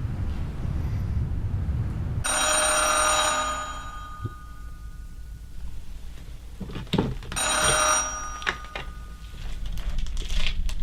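Telephone ringing twice, each ring about a second long and about five seconds apart, over a low rumble that stops as the first ring begins. A few small clicks come near the end.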